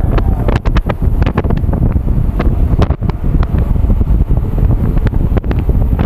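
Wind buffeting the microphone of a handlebar-mounted camera on a moving mountain bike, a loud low rumble, with frequent irregular sharp clicks and knocks.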